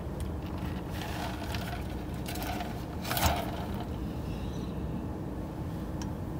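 Steady low hum of a car idling, heard from inside the cabin, with a few faint clicks and rustles; the clearest comes about three seconds in.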